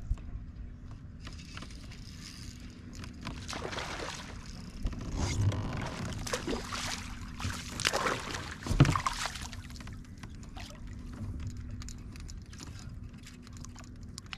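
A hooked bass thrashing and splashing at the water's surface beside a kayak while it is played on the rod. The splashing bunches up in the middle and is loudest just before nine seconds in, over a steady low hum.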